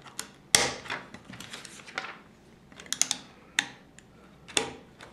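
Plastic LEGO bricks clicking as they are pressed and snapped onto a model: a handful of sharp clicks, the loudest about half a second in.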